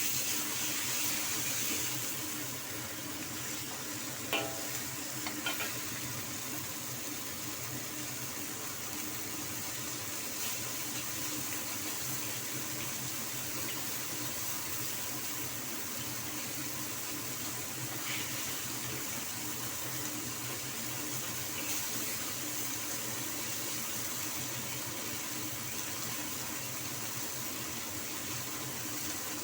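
Stuffed peppers cooking in a pan: a steady hiss over a steady low hum, with a few light clicks about four to five seconds in.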